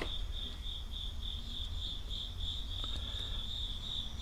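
A cricket chirping steadily, a high pulsed note repeating several times a second, over a low background hum.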